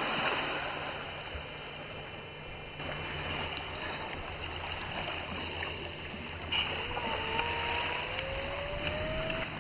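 Steady water and wind noise as a sea kayak is paddled in slowly over calm water toward the beach. A faint, slowly rising whine comes in during the last three seconds.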